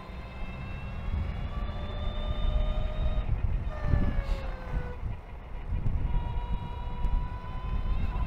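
Electric motorcycle's motor and drivetrain whining as it rides: the whine climbs slowly in pitch, slides down about four seconds in as the bike slows, then comes back and climbs again. Wind and road noise rumble underneath.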